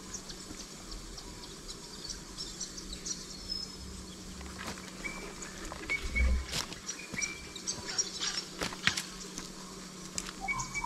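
Footsteps on dry leaf litter and loose stones, each step a short crunch or click, coming more often from about halfway through, with one low thump. Insects and a few short bird calls are in the background.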